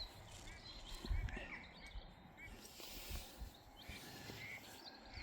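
Small birds chirping faintly with short, repeated high notes over a low outdoor rumble, with a dull low thump about a second in.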